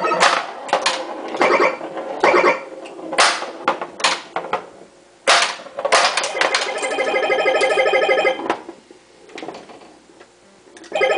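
Bally Voltan Escapes Cosmic Doom pinball machine in play: the ball and flippers clack against bumpers and targets, with the game's electronic beeping tones between the hits. About six and a half seconds in, a pulsing electronic sound runs for about two seconds, then the machine goes quieter for the last two seconds.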